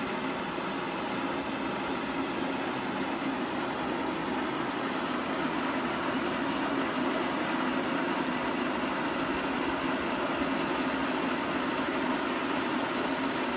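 Electric household rice mill, a Thai Top 4289, running steadily with a constant mechanical hum.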